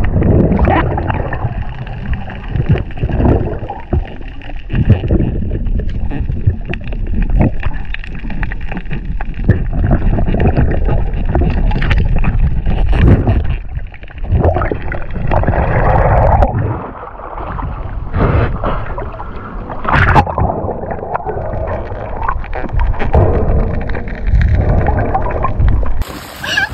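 Water noise: irregular rushing and gurgling with a heavy low rumble.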